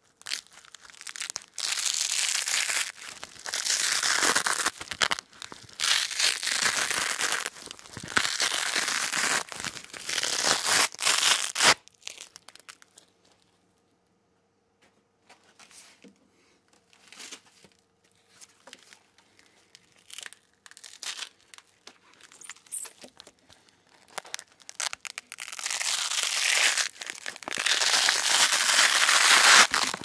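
Velcro hook-and-loop fastener torn apart from the middle of the strip in a series of long, loud rips. About twelve seconds in the ripping stops, leaving only faint scattered crackles, and loud ripping starts again near the end.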